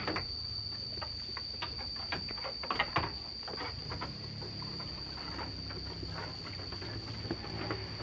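Sheep eating rice straw and paddy-field grass from a trough, with irregular crunching and rustling bites as they chew. A steady high-pitched whine runs underneath.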